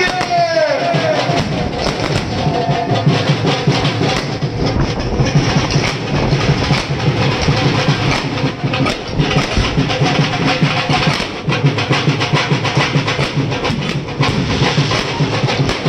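Fireworks going off: a dense, continuous run of crackling pops and bangs from firecrackers and aerial shells.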